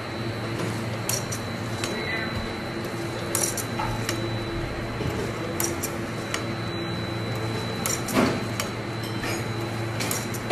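Steady machinery hum with a faint high whine in a butchery kitchen, with scattered clicks and clinks of metal and a louder knock a little past eight seconds in.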